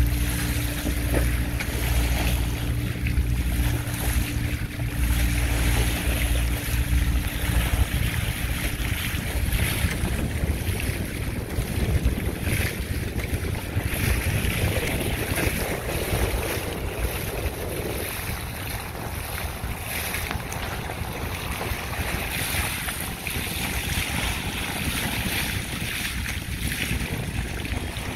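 Wind buffeting the microphone over the steady hiss and wash of water streaming past a sailing trimaran's bow and hull. A low steady hum underneath stops about nine seconds in.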